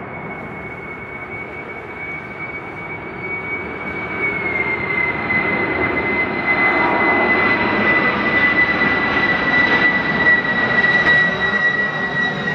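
Boeing 747 freighter's jet engines on low approach passing overhead: a steady high-pitched whine that drops slightly in pitch about four and a half seconds in as the jet goes by, over a rushing jet roar that grows louder and is loudest in the second half.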